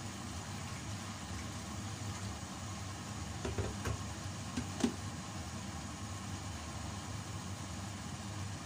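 Chicken adobo simmering in vinegar and soy sauce in a steel pan over a gas burner: a steady low hum and hiss, with a few soft pops about three and a half to five seconds in.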